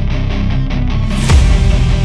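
Loud background rock music with a steady beat. About a second in it turns into a fuller, brighter section with heavy drum hits.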